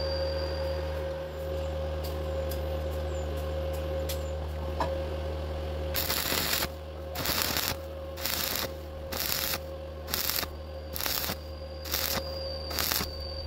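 Stick welding arc on thin square steel tube, using a 2.5 mm rod at 75 amps. About six seconds in the arc strikes and crackles in short bursts, about one every 0.7 seconds, as the arc is repeatedly broken and restruck to bridge a wide gap. Before the arc, only a steady hum.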